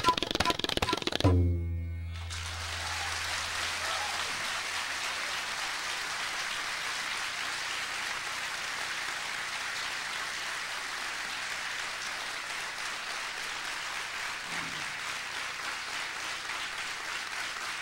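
Tabla and bansuri flute end a piece on a final deep tabla stroke about a second in, its low ring fading over the next few seconds. Steady audience applause follows.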